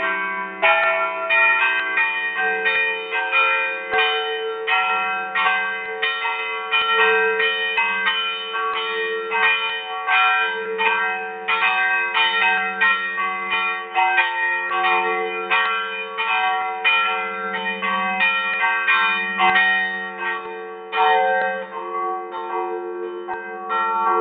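Church bells rung in a continuous festive peal: several bells of different pitch struck in quick succession, a few strikes a second, their ringing overlapping. Heard from inside the belfry, close under a large bell.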